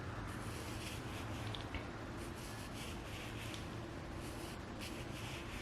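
Faint rustling and soft scratchy handling sounds over a low steady hum: quiet room tone.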